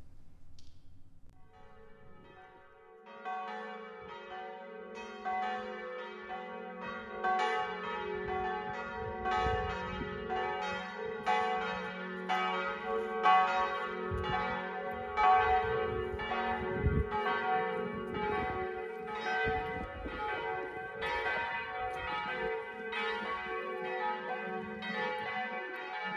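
Church bells ringing a peal: a steady run of strikes that begins about two seconds in and carries on throughout, with the bells' low hum sustained beneath.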